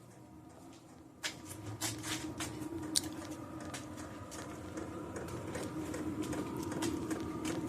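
Handling noises: scattered light clicks and rustles over a steady low hum, starting about a second in.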